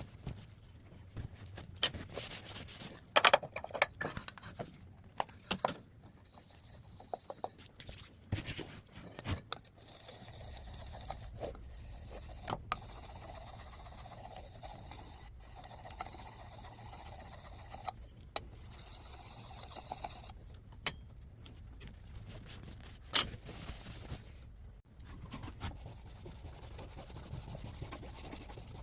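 Hand-tool work on a hand plane being tuned up: metal scraping and rubbing against an abrasive or wood surface. The first third holds scattered clicks, knocks and short scrapes; after that the rubbing runs steadier, broken by a few sharp knocks.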